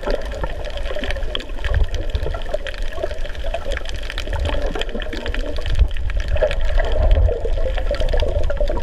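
Underwater sound of water moving around a camera swimming over a coral reef: a steady rush with dense crackling clicks and low rumbling.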